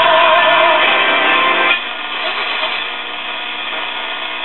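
A 1966 Hallicrafters S-200 vacuum-tube receiver playing through its speaker as its dial is tuned across the band: a strong station with music-like tones for the first couple of seconds, then a sudden drop to a weaker, mixed signal.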